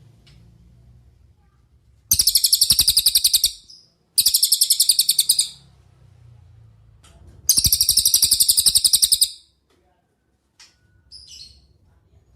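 Cililin bird singing: three loud trills of very fast repeated high notes, each lasting one to two seconds, followed by two faint short chirps near the end.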